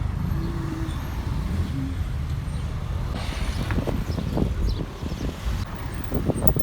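Low, steady rumble of an engine running, with faint indistinct voices in the second half.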